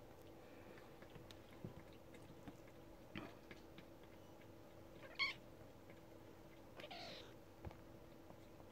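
Three-week-old kittens play-fighting, with faint mews: a brief high squeak about five seconds in is the loudest, followed about a second and a half later by a longer, rougher cry. Soft scuffling ticks of paws on sofa fabric run between the cries.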